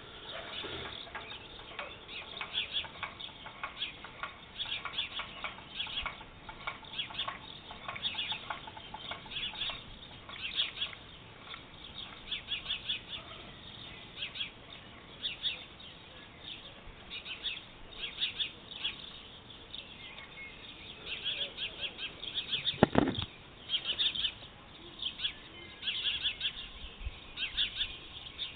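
Small birds chirping in quick runs of short, high chirps, over and over. A single brief, dull thump stands out about three-quarters of the way through.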